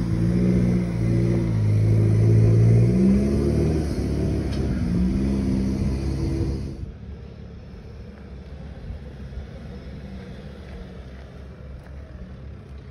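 A four-wheel drive's engine revving hard under load as it climbs a steep dirt track, its pitch dipping and then climbing about three seconds in. About seven seconds in, the engine drops away to a much fainter, more distant engine sound.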